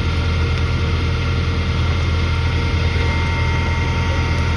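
An engine running steadily at constant speed: a heavy, even low hum with faint steady whining tones above it.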